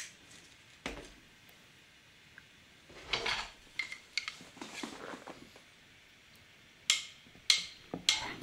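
Faint, scattered clicks and short rustles of hands handling a plastic squeeze bottle against a clear acrylic mould. There is a cluster of small noises in the middle and a few sharper ticks near the end.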